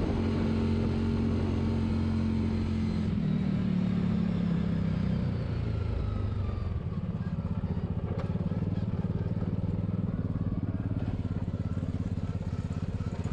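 UTV engine running under way with a steady drone, dropping in pitch about three seconds in and settling into a lower, even putter from about halfway as the throttle eases off.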